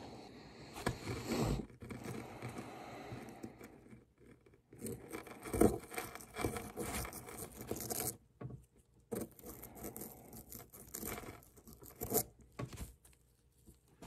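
Crumbling and scraping as a dig-kit block is broken apart by hand, in irregular bursts with short pauses about four and eight seconds in.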